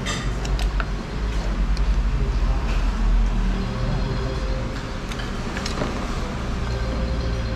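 Steady low rumble of street traffic, with a few short clicks of a metal ladle against a stainless-steel soup pot.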